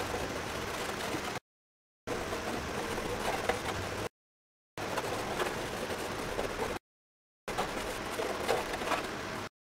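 Coloured pencil scribbling fast on a wooden panel: a steady scratchy hiss that comes in pieces about two seconds long, each cut off abruptly by a short dead-silent gap.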